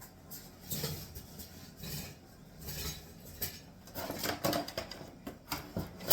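Small tools and hardware clinking and clattering as they are rummaged through in a search for a Phillips screwdriver, in irregular bursts that are busiest about four to five seconds in.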